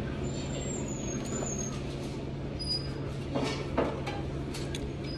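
Wooden chopsticks knocking twice against a porcelain bowl a little past the halfway point, over a steady low room hum with faint high squeals.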